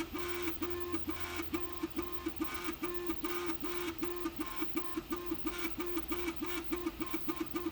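Prusa MK3S+ 3D printer's stepper motors whining through short back-and-forth moves: a low tone pulsing about three to four times a second, quickening in the last few seconds. The owner calls the printer's noise loud.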